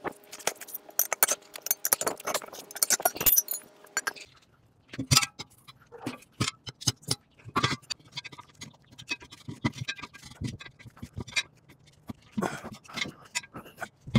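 Sharp metal clinks, knocks and scrapes of a bar and hand tools working on a steel truck wheel rim. They come thick and fast for the first few seconds, then after a brief lull as scattered single knocks.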